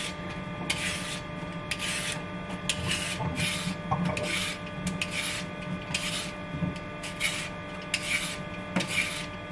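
Vegetable peeler scraping down a raw carrot in repeated short strokes, about one a second.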